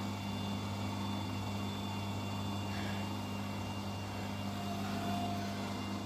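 Siemens washing machine motor running steadily with a low hum as the drum turns on the drain and spin cycle, with a load of clothes that might be a bit unbalanced.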